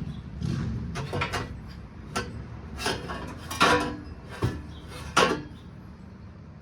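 Stainless steel long-tube exhaust header clanking and scraping against metal parts as it is worked into a tight engine bay, in a string of uneven clinks and knocks, a few of them ringing briefly.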